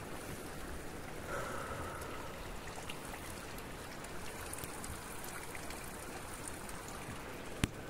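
Steady rain falling, an even hiss, with a single sharp click near the end.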